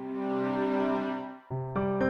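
Background music: a soft held chord swells in, breaks off briefly near the end, and new notes start.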